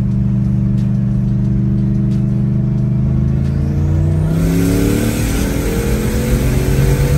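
Turbocharged LS V8 in a BMW E36, heard from inside the cabin: a steady droning cruise, then the revs climb under throttle from about three seconds in. A loud rushing hiss from the turbo and exhaust builds with the boost.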